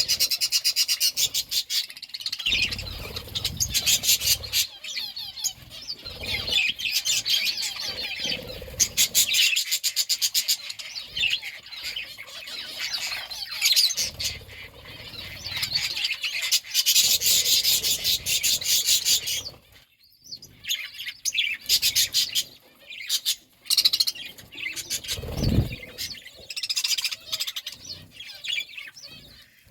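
Pet parakeets chattering with rapid, near-continuous chirps and warbles, with a brief lull about twenty seconds in. Occasional low thumps and rustles sound underneath.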